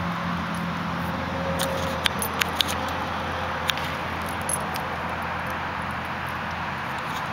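Steady noise of interstate highway traffic. A few sharp clicks about two to four seconds in come from a dog chewing a stick.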